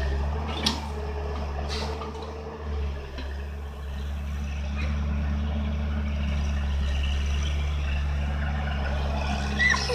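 Hyundai crawler excavator's diesel engine running steadily under load while it loads soil into a dump truck, with two sharp knocks about a second and two seconds in. A child's voice is briefly heard near the end.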